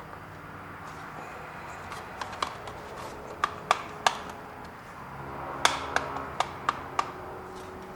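Sharp plastic clicks and taps from working the locking tabs of a Porsche 986 headlight switch panel assembly loose by hand, about ten irregular clicks starting a couple of seconds in.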